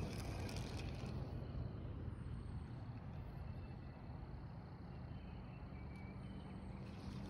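Quiet outdoor background: a steady low hum under a faint even rushing noise.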